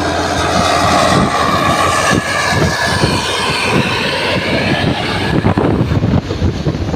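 A passing bus sounding its multi-tone telolet 'basuri' air horn, several wavering horn notes at once over the bus's engine rumble. The horn notes fade about five seconds in, leaving engine rumble and wind buffeting on the microphone.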